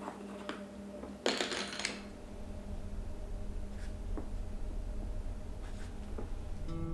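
Felt-tip marker drawing on paper: a scratchy rush of strokes about a second in, then a few light ticks, over a steady low hum.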